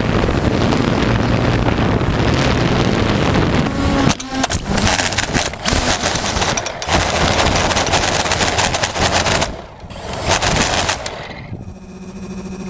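DJI quadcopter in flight with wind on the microphone. About four seconds in it crashes, and its spinning propellers strike the ground in rapid clattering clicks for several seconds, a blade breaking. Near the end the clatter stops and it falls quieter, with a steady hum.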